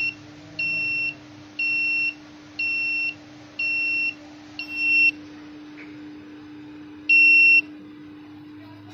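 Fusions Group RDS-786 remote firing device's master controller beeping through its self-test. Five even, high-pitched beeps come about once a second, then after a pause one louder beep about seven seconds in.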